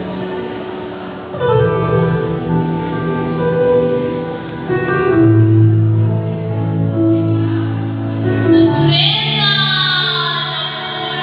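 Music with a sung melody, long held notes changing every second or so. About nine seconds in, a bright high sound slides steadily down in pitch.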